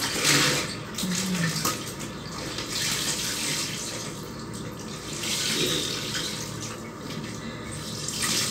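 Water pouring and splashing from soaked clothes as they are lifted out of a plastic basin and wrung and squeezed by hand, the water running back into the basin in repeated surges.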